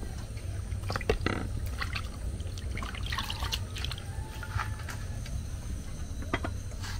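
Water splashing and dripping in a plastic bowl as hands wash pieces of mackerel, with irregular small splashes and light knocks.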